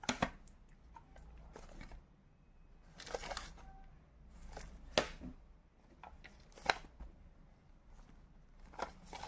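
Shrink-wrapped audio cassettes being handled: scattered plastic clicks and taps with soft rustling. The sharpest tap comes about five seconds in.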